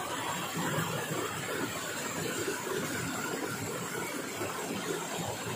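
Steady rushing of a flowing river, an even wash of water noise with no distinct strikes.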